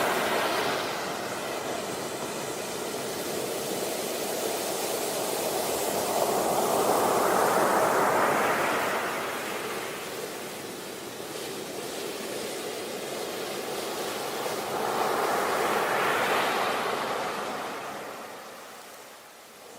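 Sea waves breaking and washing up on a beach: the surf swells twice, around the middle and again later on, then eases near the end.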